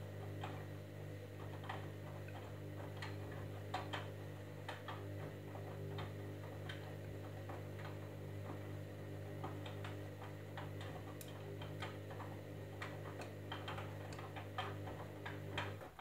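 Candy Grand'O Vita washing machine tumbling a wet load during the wash: a steady motor hum with irregular clicks as the laundry turns and drops in the drum. The hum cuts off suddenly just before the end as the drum stops turning.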